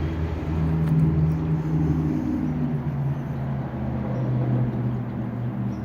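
A steady low mechanical hum that steps down in pitch about two seconds in, over a faint hiss.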